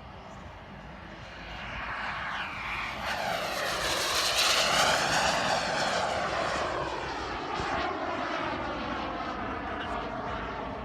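Turbine engine of a radio-controlled model F-104 Starfighter jet flying past, getting louder to a peak about four to five seconds in, then slowly fading.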